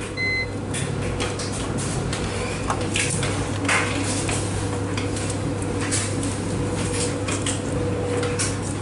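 A short electronic beep from a Speed Queen washer's control panel as a button is pressed. Then a steady machine hum with irregular clinks and clatters.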